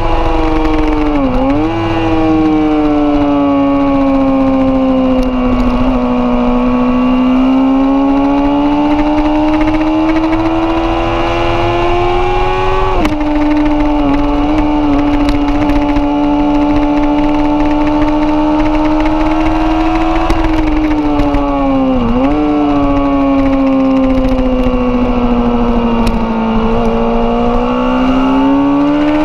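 Honda CBR1000RR Fireblade's inline-four engine running hard at high revs on track, with wind noise underneath. Its pitch sags and climbs slowly, dips sharply and briefly about a second in and again about 22 seconds in, and drops suddenly about 13 seconds in.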